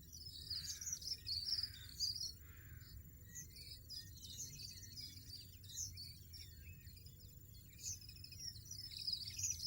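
European goldfinches twittering: a rapid, continuous run of high chirps and trills, loudest about one and two seconds in.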